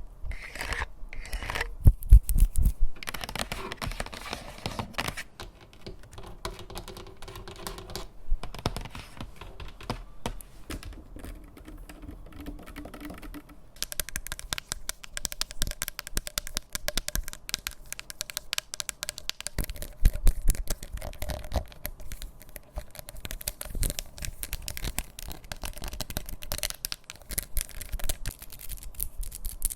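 ASMR tapping: fingertips and nails tapping and scratching on objects, first in separate taps and scratches, quieter for a while, then in fast dense tapping from about halfway on.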